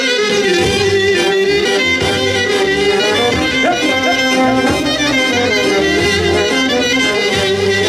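Greek folk dance music from Karditsa in Thessaly playing, a held melody over a bass line that comes in just after the start.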